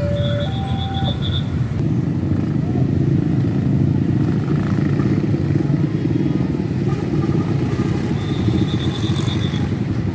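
Heavy diesel trucks passing with a steady engine rumble. The last two stepped notes of a telolet horn melody sound at the start and stop about a second in. A high, rapidly pulsing whistle-like trill sounds briefly at the start and again near the end.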